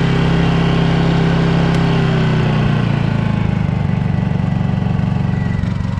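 Honda EU2200i inverter generator's single-cylinder engine running on propane just after starting. Its speed drops slightly about two to three seconds in, then it runs steadily.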